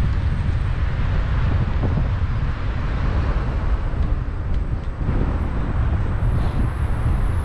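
Wind buffeting the microphone in a heavy, uneven low rumble, over the noise of city street traffic.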